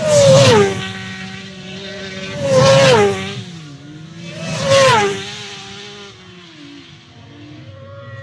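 Three racing motorcycles pass at high speed one after another, about two seconds apart, each engine note at full throttle dropping sharply in pitch as it goes by. After the third, a fading engine note follows.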